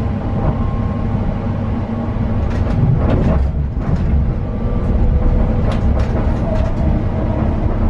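Interior running noise of a Greater Anglia Class 720 electric multiple unit at speed: a steady low rumble from the wheels on the rails, with short clusters of clicking and knocking about two and a half seconds in and again around six seconds.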